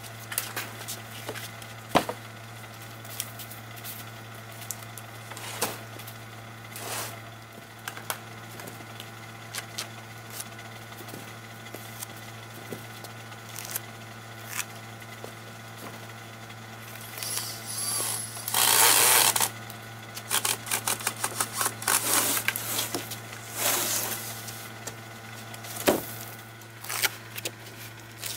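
Wooden frames and plywood sheets being handled: scattered knocks and clicks, with a louder scrape of about a second two-thirds of the way through followed by a run of shorter scrapes and knocks, over a steady low hum.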